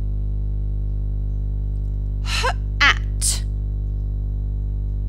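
A steady low electrical-sounding hum. About two seconds in, a woman sounds out three separate speech sounds: a breathy 'h', a short vowel and a crisp 't', segmenting the word 'hat'.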